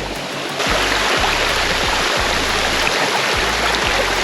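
Steady rush of flowing water from a stream or waterfall, growing louder about half a second in, with a low rumble underneath.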